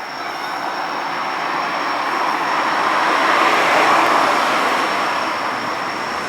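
A train passing: a steady rush of rail noise that swells to its loudest about midway and eases off slightly toward the end.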